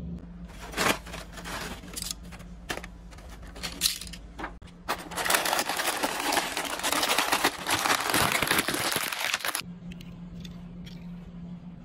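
Hot Wheels blister packaging being handled and opened: scattered clicks and crinkles for the first few seconds, then a dense, louder crinkling for about five seconds that stops suddenly.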